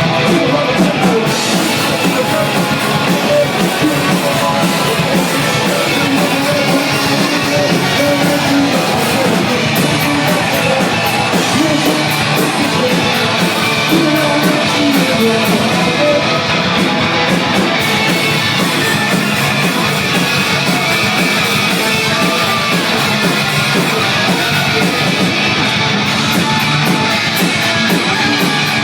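A rock band playing loud with distorted electric guitar, heard from the room.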